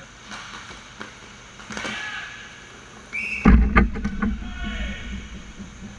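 Inline hockey play at the goal mouth: about halfway in, a brief high-pitched tone, then a heavy thump and a few sharp clacks of sticks, puck and pads against the goal. The thump is the loudest sound, and a low rumble fades after it.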